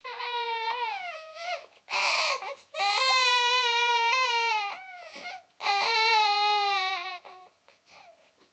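A young child bawling: long, high-pitched wails that sag slightly in pitch, broken by short gaps for breath.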